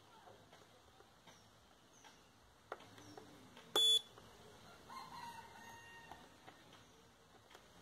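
Digital multimeter's continuity buzzer gives one short, high beep about four seconds in as its probes touch a diode on the spray-machine controller board, with faint probe clicks before it. A chicken calls faintly about a second after the beep.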